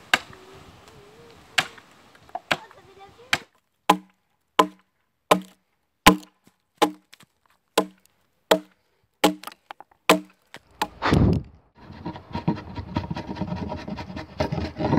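Axe strokes hewing green wood: sharp, separate chops about one every 0.7 s, each with a short wooden thump. In the last few seconds this gives way to a denser run of quick, light hatchet cuts and rasping.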